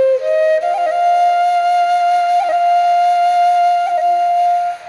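Nepali folk instrumental music led by a flute: it rises into one long held high note, decorated with a few quick flicks about a second, two and a half and four seconds in.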